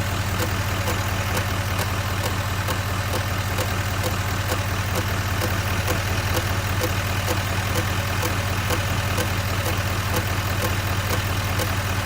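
2019 Chevrolet Silverado 2500 HD's L5P 6.6-litre Duramax turbo-diesel V8 idling steadily, with a loud, regular clicking/tapping from the front of the engine a few times a second. The cause is not known; the owner is seeking ideas before a dealer visit.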